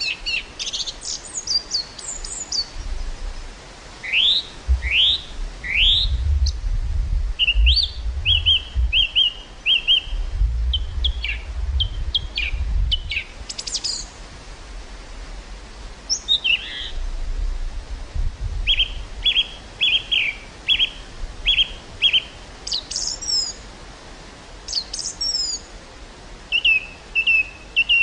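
Small birds chirping and calling: quick rising whistles and runs of short repeated notes. Low wind rumble on the microphone comes in gusts through the first two-thirds.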